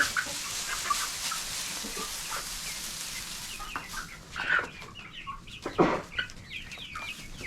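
Hens clucking, with short calls scattered through and one louder call about six seconds in. For the first few seconds a steady rustling hiss runs under them, as of straw bedding being spread out.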